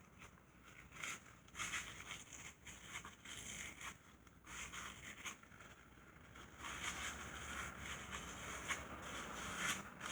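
Irregular scraping and rustling of hand work on the transmission casing, in short bursts with a longer stretch near the end.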